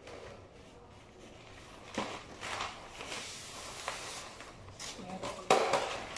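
Wrapping paper rustling and crinkling as it is folded around a cardboard carton, with a sharp crackle about two seconds in and a louder one near the end.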